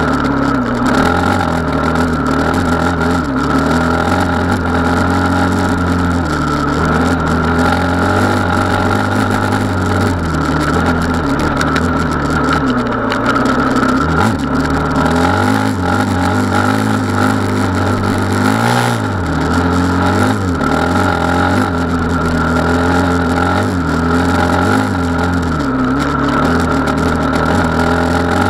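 Gas Gas 450 Wild HP engine running under load, its pitch rising and falling with the throttle. The revs drop briefly a little before halfway and again about two-thirds through, then pick up.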